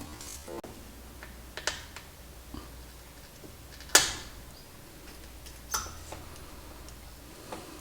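Tools and small metal parts being handled on a workbench: a few scattered clicks and clinks, the sharpest about four seconds in, over a low steady hum.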